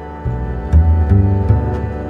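Background music: sustained tones, with a deep bowed-string bass line coming in about a quarter second in and a light percussive beat starting near the end.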